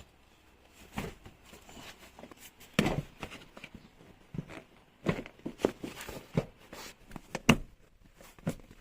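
A car's rear seat being fitted back into place, giving a series of irregular knocks and thuds, with the loudest about three seconds in and again near the end.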